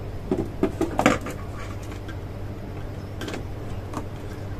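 Small clicks and rustling of electrical wires and connectors being handled and fitted at a terminal strip, a cluster of them in the first second and a few more near three and four seconds, over a steady low hum.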